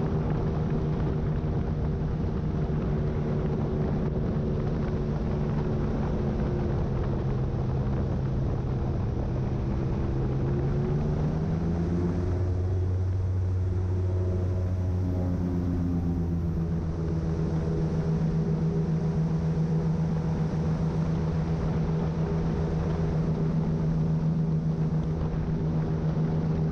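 Airboat's engine and large air propeller running steadily under way. About halfway through, the engine note shifts in pitch, then settles back into a steady run.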